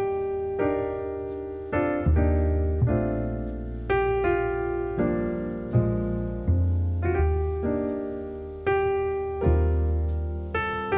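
Background piano music: slow chords struck about once a second, each fading before the next, over deep bass notes.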